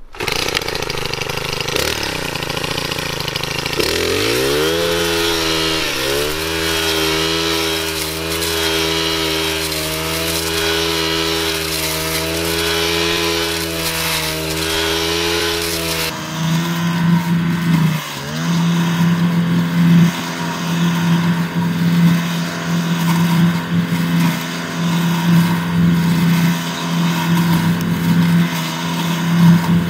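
Echo SRM-3610 brush cutter's two-stroke engine running at high revs while its three-tooth blade cuts tall, thick weeds. The engine note climbs about four seconds in and then holds. In the second half it wavers and dips briefly as the blade works through the stems.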